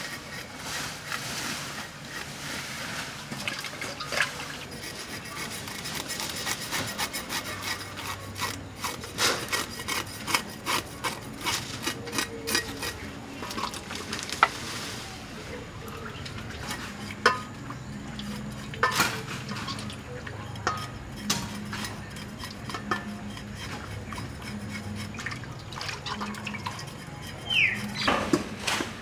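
Whole fish being washed by hand in a metal bowl of water: water splashing and sloshing, with repeated clinks and knocks against the bowl.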